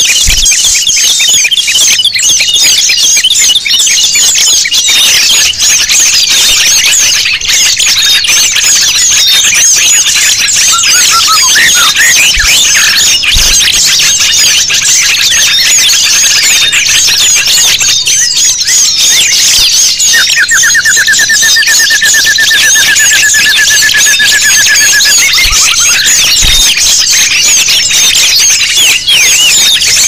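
A dense chorus of many small songbirds chirping and twittering at once: a mixed bird-lure recording of noisy small birds. A rapid, even trill of repeated notes stands out for about five seconds past the middle.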